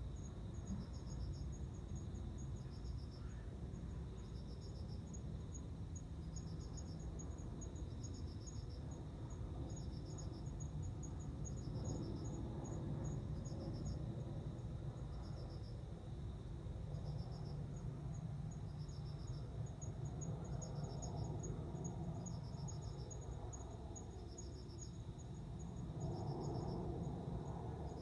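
Male cricket singing: short pulsed chirps repeating about once a second, with a faster row of high ticks alongside, over a low background rumble.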